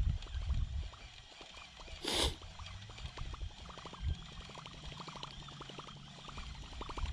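A short splash about two seconds in, then a fishing reel cranked steadily with rapid, even ticking as a topwater plopper lure is retrieved.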